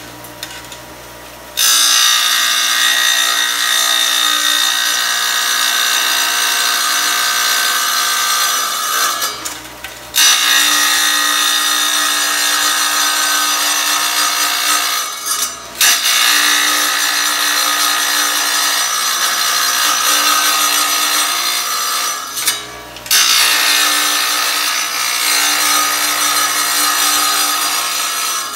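Chicago Electric benchtop tile saw's blade grinding through tile in four passes. Between cuts the sound drops briefly back to the saw running free, once near the start and three more times.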